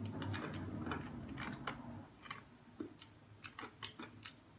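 Crunching as two people bite into and chew a hard, sugar-topped snack: a quick run of sharp cracks that thins out over the last couple of seconds.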